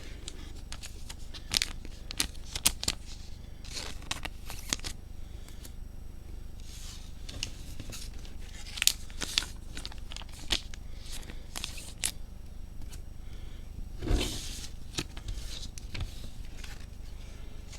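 Trading cards being slid into soft plastic penny sleeves and handled, giving irregular plastic rustling, crinkling and light scrapes and taps, with a louder rustle about fourteen seconds in.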